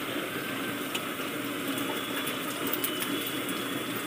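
Beaten egg sizzling steadily on a hot flat iron griddle as it spreads into an omelette, with a faint click or two.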